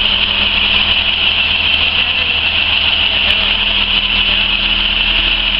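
School bus engine idling steadily with a low hum, under a loud, steady high-pitched drone.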